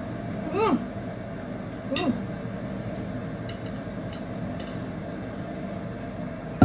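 Steady hum of a running kitchen appliance. Two short hummed vocal sounds come about half a second and two seconds in, and a few faint clinks are heard.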